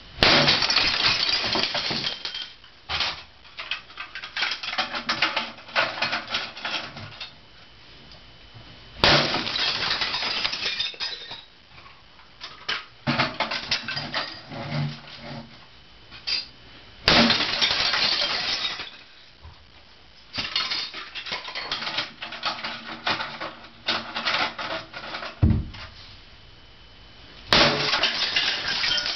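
A hammer smashing brittle plastic, with sharp cracks and crunching shards. The strikes come in rapid spells a couple of seconds long, separated by quieter pauses of several seconds with only a few single blows.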